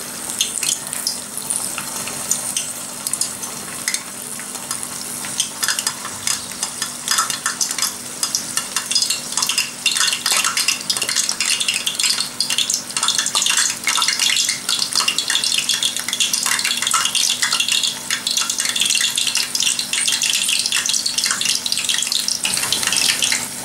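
Grated potato pressed between two tea strainers deep-frying in hot oil, the oil sizzling with a dense crackle of small pops that grows busier about six seconds in.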